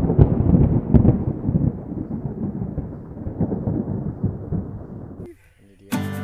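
Thunder sound effect: a sharp crack at the start and another about a second in, then a long low rumble that dies away over about four seconds. Music starts near the end.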